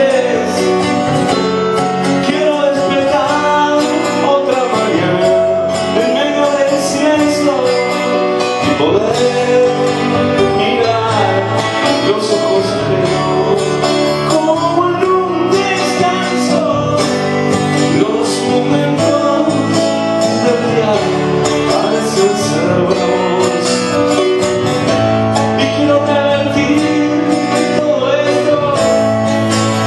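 Live song: a man singing with a strummed acoustic guitar.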